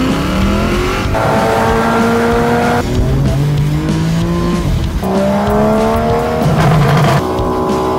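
BMW M2's N55 turbocharged straight-six with an aftermarket exhaust revving, its pitch climbing twice, mixed with rock music.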